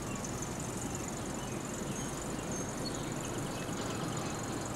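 Outdoor ambience: a steady low rumble and hiss under a continuous high-pitched insect trill, with a few faint bird chirps.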